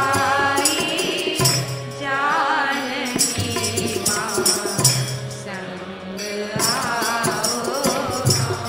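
Devotional Hindu bhajan music: a voice singing a melody over steady jingling hand percussion.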